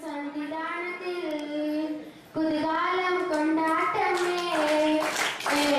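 A woman singing a song into a microphone, in sustained, gliding phrases with a short break about two seconds in. Hand-clapping joins in about four and a half seconds in.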